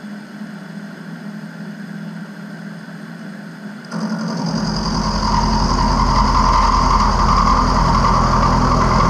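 Small milling machine running with a steady hum; about four seconds in, a much louder cutting noise starts suddenly and builds over the next two seconds as the four-flute slot drill feeds into the mild steel block, then holds steady.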